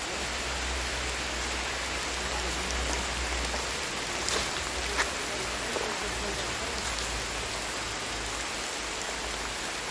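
Steady rain falling, with a few sharper drop taps.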